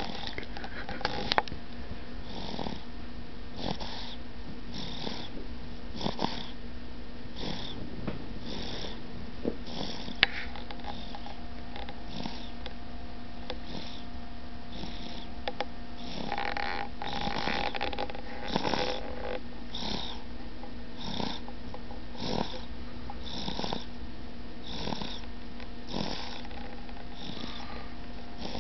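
Snoring in a steady rhythm, one short snore about every second, over a steady low hum.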